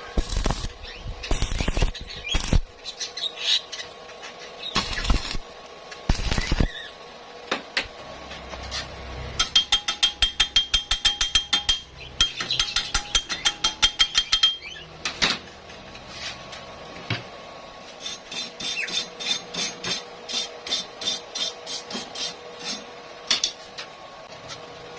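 Hand tools working metal: several heavy knocks, then rapid even strikes, about five a second, with a ringing tone, and later lighter quick tapping.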